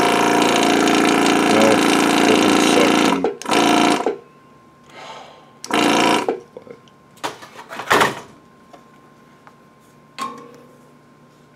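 Hakko 470 desoldering station's vacuum pump running with a steady buzz, switched from the 802 desoldering gun. It cuts off a little over three seconds in, then runs in three short bursts, the last near the eight-second mark. The pump runs, but no suction reaches the tip because the gun's filter is clogged with solder.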